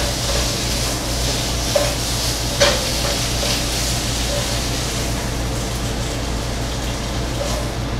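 Thin-sliced beef brisket sizzling in a hot frying pan as it is stir-fried with metal tongs. There are two sharp clinks of the tongs on the pan about two seconds in.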